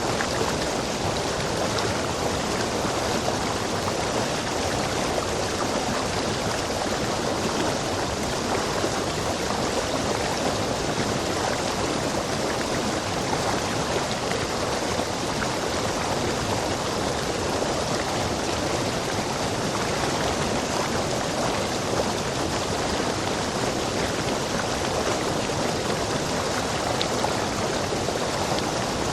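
Rainforest stream rushing over rocks: a steady, even rush of water.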